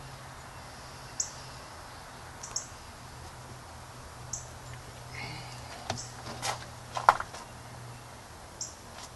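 Sharp clicks and knocks from a hand working the valve end of a nitrous bottle, clustered near the end, the loudest about seven seconds in. Short, high chirps sound every second or two over a low steady hum.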